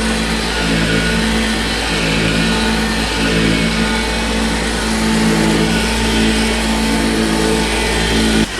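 Electric massager running steadily on the patient's back, a loud, even motor buzz that cuts off abruptly near the end.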